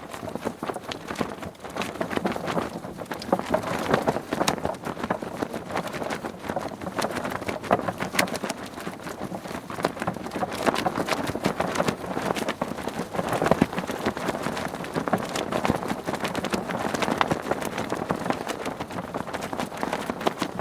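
Sail flapping in the wind: the cloth flutters in a rapid, uneven patter of snaps that keeps going without a break.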